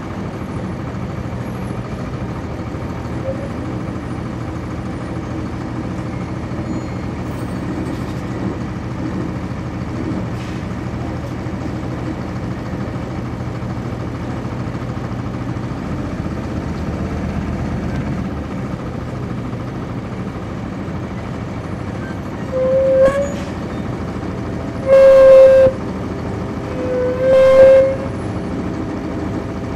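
Inside a 1999 NovaBus RTS transit bus: its Cummins ISC diesel engine drones steadily while under way. Near the end, three short, loud horn honks sound, the last one rising slightly in pitch.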